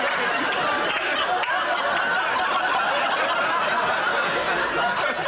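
Studio audience laughing in one long, steady wave of many voices.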